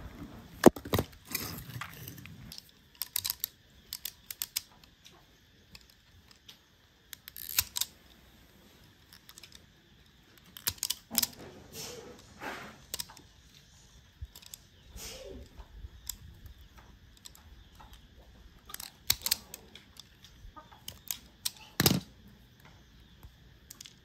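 Irregular clicks, taps and rustles of hands working twisted insulated copper wire, with an automatic wire stripper clamping and cutting the wire ends. A heavier knock comes near the end.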